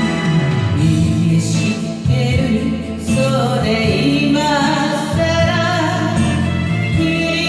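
A woman singing a Japanese popular song over an instrumental backing track, her held notes wavering with vibrato.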